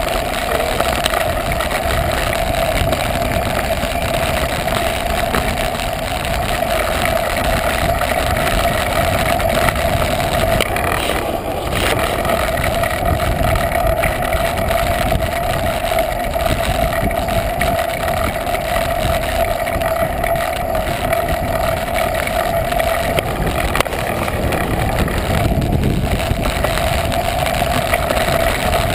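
Mountain bike ridden fast down a rough, rocky, rooty trail: continuous rattling and rumbling from tyres and frame, with wind noise, heard through a GoPro action camera. The clatter eases briefly twice, about eleven seconds in and again later.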